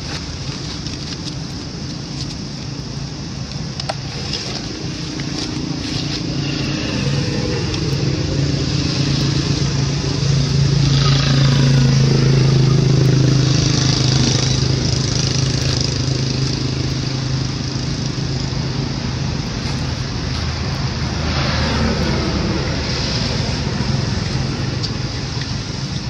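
Motor vehicles passing on a nearby road: a steady engine drone that swells to its loudest about twelve seconds in, with falling-pitch sweeps as vehicles go by, once near eleven seconds and again near twenty-one seconds.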